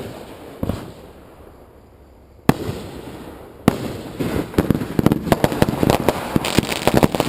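Fireworks going off: three sharp single bangs about a second apart, then from about four seconds in a dense, rapid crackle of many small reports that keeps building.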